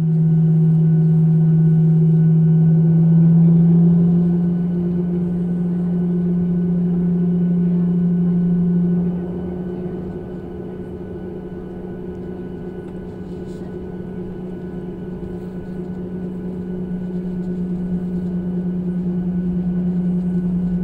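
Steady low hum inside the cabin of a Boeing 737-800 taxiing on its idling CFM56 jet engines. It drops in level and steps up slightly in pitch about nine seconds in, then slowly grows louder.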